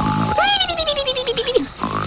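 An animal's high, clear cries in quick succession, each rising sharply and then sliding slowly down in pitch for about a second.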